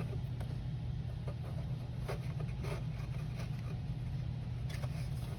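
A steady low background hum with a few faint ticks and rustles of handling.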